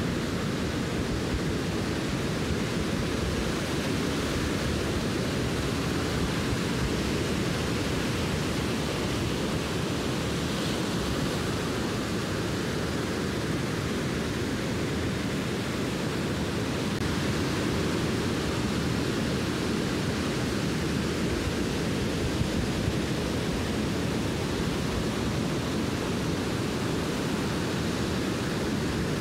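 Steady surf: waves breaking on a sandy beach, a constant rushing noise with no distinct events.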